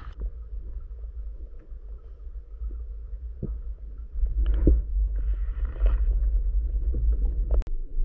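Muffled low rumble of water against an action camera's underwater housing as a freediver swims down, louder from about halfway. A few faint knocks and a brief hiss come through it, and there is one sharp click near the end.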